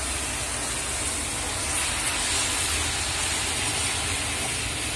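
Light, steady rain falling, heard as an even hiss with a low rumble under it.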